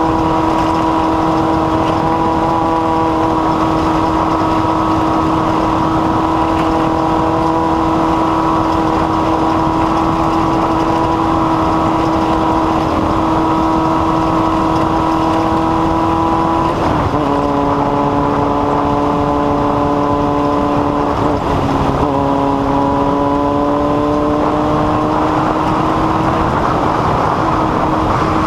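An engine running at a steady high speed over a constant rushing noise. Its pitch drops about seventeen seconds in, dips again a few seconds later, then climbs slowly back up near the end.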